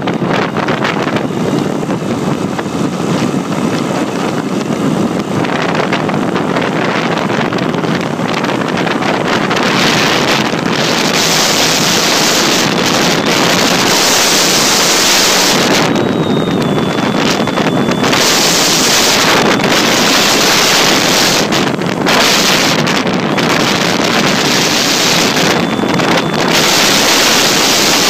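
Wind rushing over the microphone of a phone mounted on a model Cessna, over the model's running motor. The rush grows louder and hissier about ten seconds in, dropping back in brief gaps, with a faint steady high whine in the second half.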